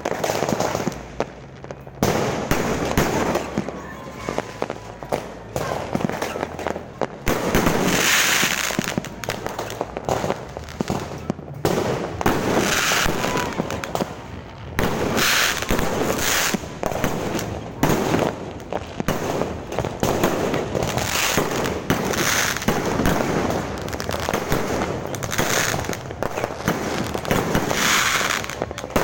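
Fireworks going off continuously: a dense run of sharp bangs with repeated crackling, hissing swells every second or two.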